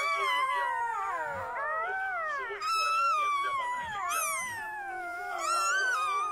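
A litter of blind newborn puppies crying together: several high, wavering whines overlapping and sliding up and down in pitch without a break.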